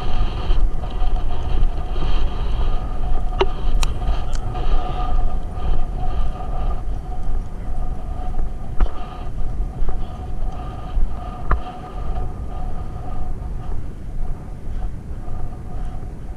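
Wind buffeting the microphone of a camera carried on a galloping racehorse: a loud, uneven low rumble that pulses with the gallop. A few sharp clicks come through about four seconds in and again near twelve seconds.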